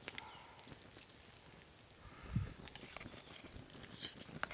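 A knife blade scraping and clicking against a thin metal pan as cooked eggs and cheese are scooped out: a few short sharp clicks spread through, with a soft low thump a little over two seconds in.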